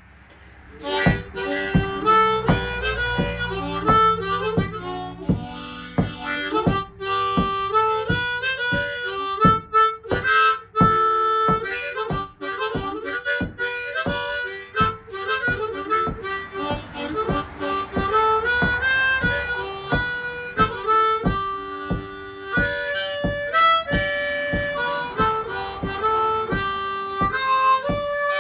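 Harmonica played as a blues-style tune, a quick run of changing notes over a steady beat of sharp strokes.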